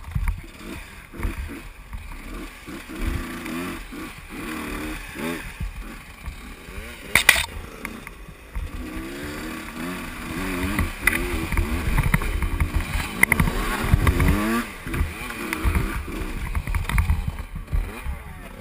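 Husqvarna WRE125 two-stroke enduro engine revving up and down over and over while the bike is ridden along a trail, with wind buffeting the helmet microphone. A single sharp knock about seven seconds in.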